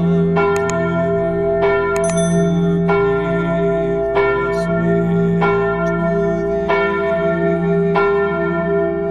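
Church bell ringing in a slow, even rhythm, struck about once every second and a quarter, each stroke ringing on under the next.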